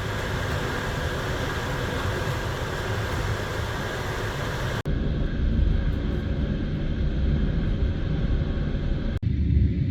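Passenger train running, a steady rumble with a rushing noise. The sound cuts off abruptly about five seconds in and again near the end, and after each cut it is heavier in the low rumble and duller.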